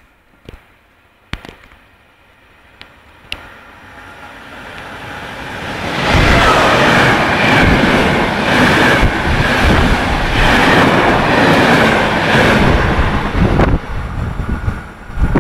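Trenitalia regional passenger train running through the station without stopping. A rumble builds over a few seconds, then a loud rush of wheels on rails with clatter lasts about eight seconds, and it falls away near the end as the last coach passes.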